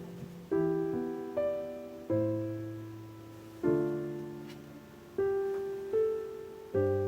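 Soft background piano music: slow chords struck about every second and a half, each left to fade.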